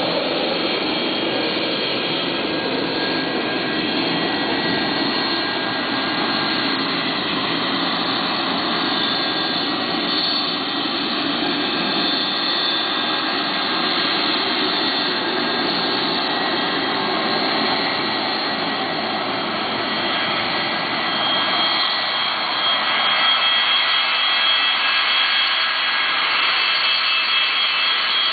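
Boeing 737-200's Pratt & Whitney JT8D turbofan engines running as the jet taxis and turns. It makes a loud, steady jet noise with high whining tones, and the whine grows stronger in the last few seconds as the jet swings round toward the listener.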